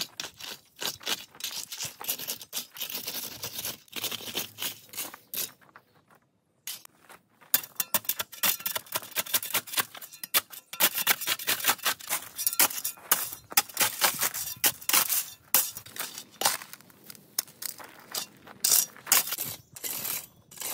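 Repeated scraping and crunching strokes of a metal rake and a spade dragged through gravel and weeds, with a brief break about six seconds in.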